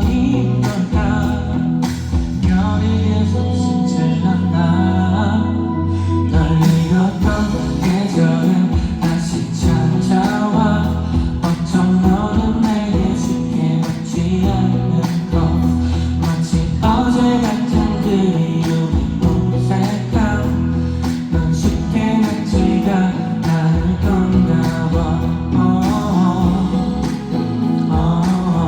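Live pop song: a male vocalist singing over band accompaniment.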